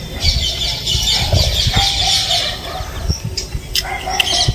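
Chickens clucking and calling, a dense chatter for the first few seconds, then a few scattered calls.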